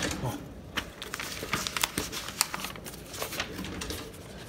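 Rustling and scattered small knocks and clicks as plush toys and a hand-held phone are handled and moved about.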